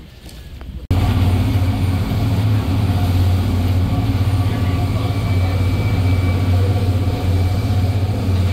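A boat's engine running steadily, a loud, even low hum that starts abruptly about a second in.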